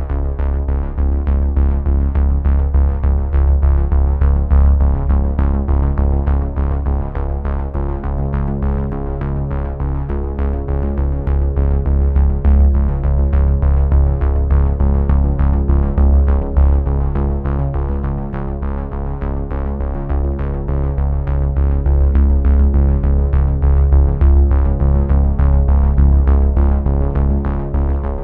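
Background music: electronic synthesizer music with a steady beat and a heavy bass line.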